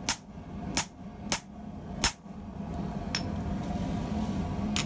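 Hand hammer striking a hot steel rod in a rivet header, forming the rivet head: four sharp ringing blows in the first two seconds. Then a steady low hum with a light clink or two.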